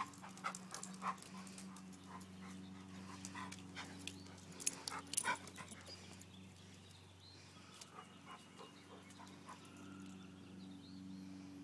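Dogs, one a boxer, playing with a giant rope toy: faint panting and scattered short scuffs and knocks, busiest in the first half, over a steady low hum.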